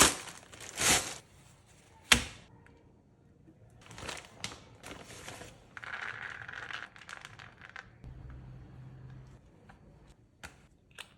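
Food-preparation handling noises: rustling and crinkling with several sharp clicks and knocks.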